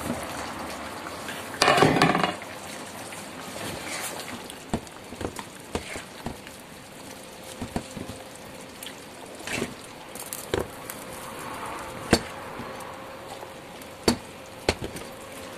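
Stewed pork and vegetables being spooned from a frying pan into a terracotta dish: a serving spoon scraping and knocking against the pan and the dish in scattered sharp clicks, over the faint steady sizzle of the stew still simmering in the pan. A louder clatter comes about two seconds in.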